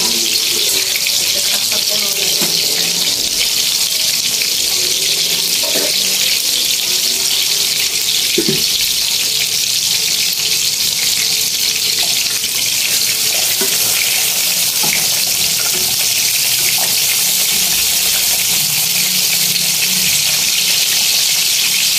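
Pork sizzling and bubbling in its liquid in a wok: a steady, even hiss.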